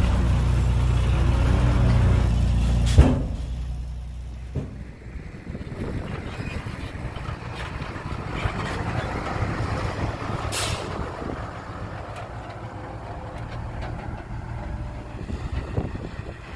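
Heavy truck's diesel engine running steadily, then a sharp snap about three seconds in as the steady note dies away, followed by a rougher, quieter rumble with a short hiss of air partway through.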